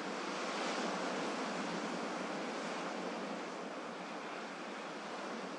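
Gentle sea waves washing ashore: a steady wash of surf that swells slightly about a second in and eases off again.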